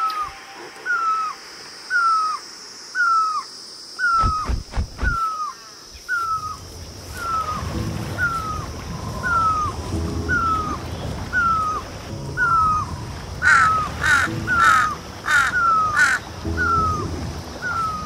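Crow cawing: short falling calls about twice a second, with a louder run of four or five harsher caws a little after the middle.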